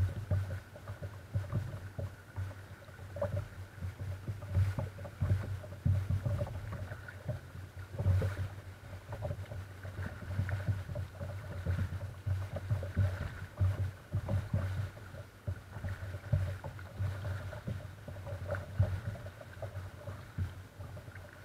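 Sit-on-top plastic kayaks being paddled on calm sea water: paddle splashes and water lapping and slapping against the hull. It comes as irregular dull knocks and surges.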